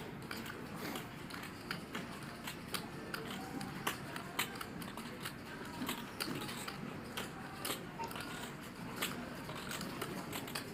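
Poker chips clicking as they are handled and shuffled at the table: an irregular run of small, sharp clicks over a low room murmur.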